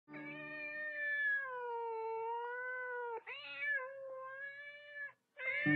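A cat meowing: one long drawn-out meow of about three seconds that wavers in pitch, then a second meow of nearly two seconds, and a third starting near the end.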